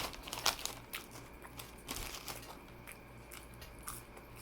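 Eating sounds: biting and chewing food, with crackly crunches in clusters just after the start and again around two seconds in.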